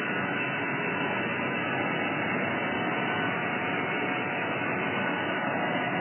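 Steady, even machine hum and hiss, with no distinct knocks or changes, such as workshop machinery running.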